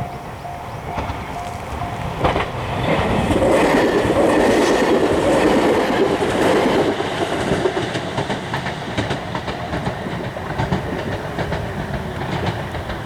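A train passing through a Japanese level crossing, its wheels clattering over the rail joints. The crossing's warning bell rings in steady pulses at first and is drowned out when the train arrives about two seconds in; the passing noise peaks a few seconds later and eases off near the end.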